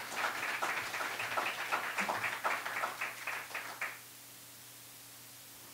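Small audience applauding with hand claps, dying away about four seconds in.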